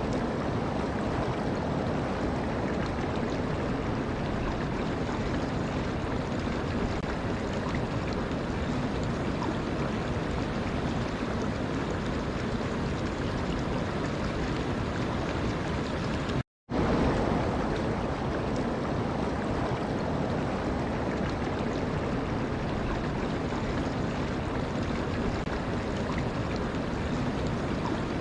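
Running water, a steady even rush with no distinct splashes, briefly cutting out about sixteen seconds in and then resuming.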